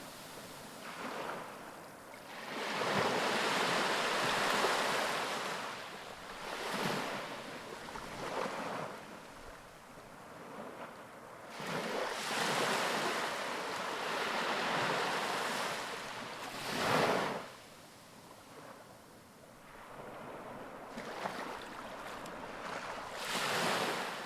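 Ocean waves breaking on a beach, the surf swelling and fading in surges every few seconds, with some wind noise on the microphone.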